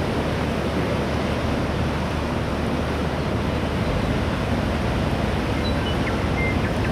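Steady rushing noise of wind and sea water, with a low rumble underneath that shifts slightly about four seconds in.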